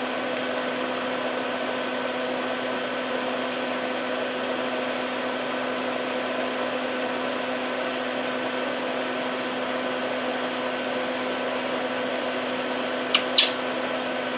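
A small electric motor running steadily with a hum, most likely a fan at the workbench. Two short clicks come near the end.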